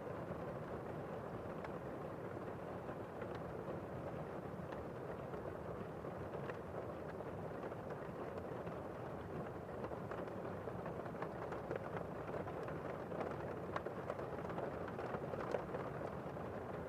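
Steady rain ambience: an even hiss of rainfall with scattered faint ticks of drops, a little busier in the second half.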